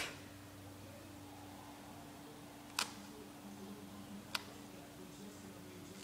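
Two short, sharp clicks about a second and a half apart, a flat plastic piece knocking against the wet tiled floor, over a faint low steady hum.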